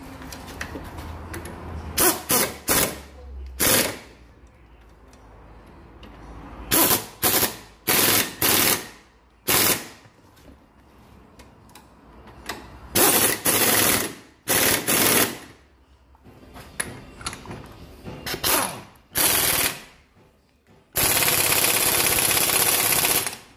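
Pneumatic impact wrench hammering in a series of short bursts, then one longer run of about two and a half seconds near the end as it works the front wheel hub nut.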